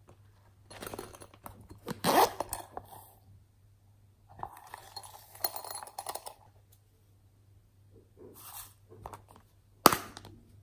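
Hands handling small plastic and foam toys, with rustling and scraping in two spells. Near the end comes a single sharp plastic click, the loudest sound, as a heart-shaped clear plastic case of glitter snaps open.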